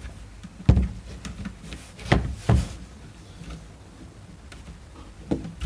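A few sharp knocks and clicks from hard parts being handled and set down, with fainter ticks between. The loudest knock comes about a second in, two more follow a second or so later, and a last one falls near the end.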